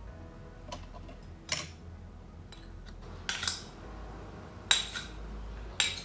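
Metal spoons clinking and scraping against a stainless steel pot and against each other while stirring a thick gravy: a handful of sharp clinks, the loudest a little under five seconds in.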